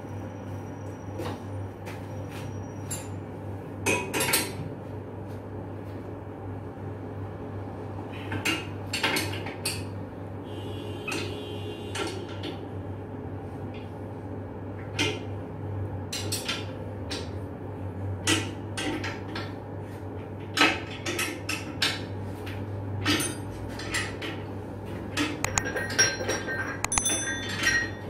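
Irregular metallic clinks and knocks of a hand tool working on steel fire-water pipework and its bolted clamp, with brief metallic ringing near the end, over a steady low hum.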